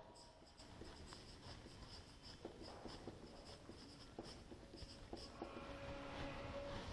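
Marker pen writing on a whiteboard: faint scratching strokes and light taps of the tip on the board.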